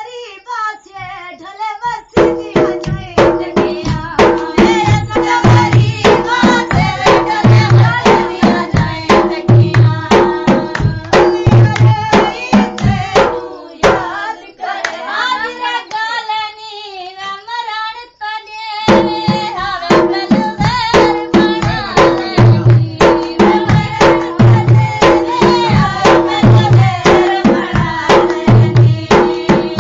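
Folk singing with a fast, even dholak drum beat and hand clapping. The singing starts alone, and the drums come in about two seconds in. About halfway through the drumming stops for a few seconds, leaving only the singing, and then it starts again.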